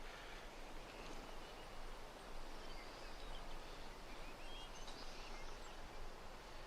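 Quiet outdoor ambience: a steady background hiss with a few faint, short bird chirps.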